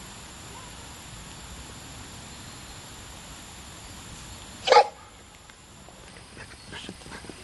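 A dog barks once, a single short bark about two-thirds of the way in, followed by a few faint ticks.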